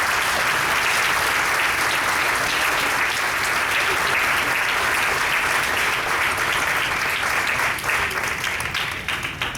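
Audience applauding, a steady round of clapping that thins out near the end.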